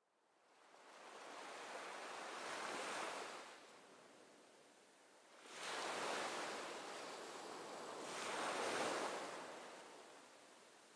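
Rushing sound of sea waves, fading in from silence and then rising and falling in slow surges a few seconds apart.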